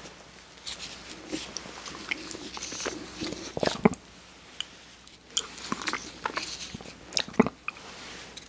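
Close-miked mouth sounds of eating a soft-serve ice cream cone: wet licking, smacking and biting into the ice cream, with sharp clicks about four seconds in and again near seven and a half seconds.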